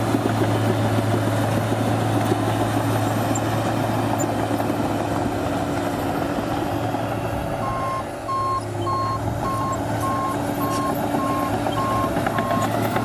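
Diesel engine of a New Holland D180C crawler dozer running steadily under load, heard from inside the cab. About eight seconds in its reversing alarm starts beeping, about two beeps a second, as the dozer backs up.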